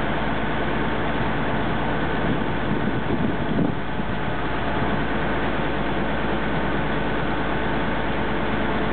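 Express river boat's diesel engine running steadily under way, with water rushing along the hull. The low rumble swells briefly a little over three seconds in.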